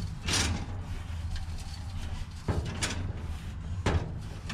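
Hands scraping out grain and chaff residue inside the sheet-metal housing of a Bizon Rekord combine harvester: a short rustling scrape just after the start, then a few sharp knocks against the metal about two and a half seconds in and again near the end, over a steady low hum.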